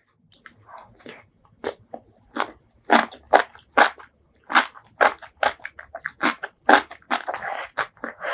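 Close-miked eating sounds: a quick run of crisp, wet crunches and chews, about two or three a second, with one longer hissing sound near the end.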